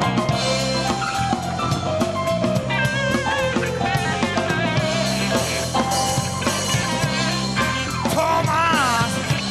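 A blues-rock band playing live: drum kit, bass guitar, electric guitar and keyboard, with a wavering, bending lead line over the top.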